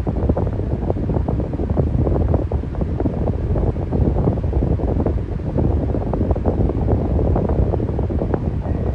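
Electric fan running steadily: a low, even rush of moving air with a fast, uneven flutter.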